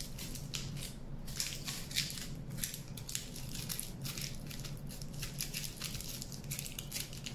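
Aluminium foil being crumpled and pressed tight by hand around a wire armature: a run of irregular crinkling crackles.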